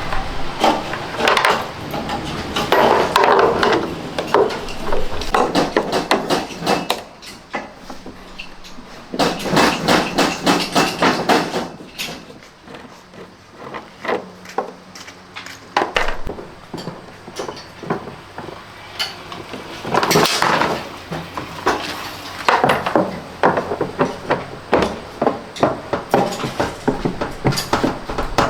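Runs of rapid hammering on metal, several strikes a second, lasting a few seconds each with quieter pauses between, as parts of a front-loading washing machine are worked on.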